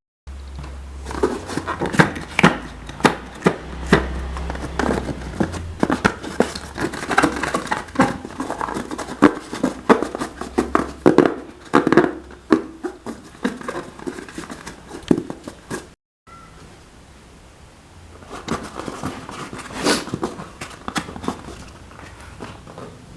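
Slime being handled and mixed by hand, giving a dense run of sticky clicks, crackles and squelches.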